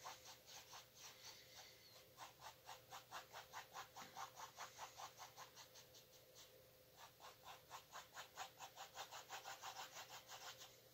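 Faint paintbrush strokes scrubbing paint onto a stretched canvas: quick short back-and-forth strokes, about four a second, in two runs with a brief pause near the middle.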